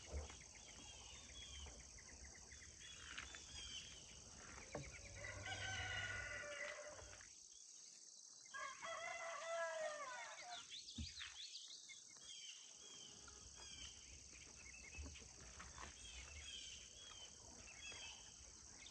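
Rooster crowing twice, about five and nine seconds in, over a steady high insect drone.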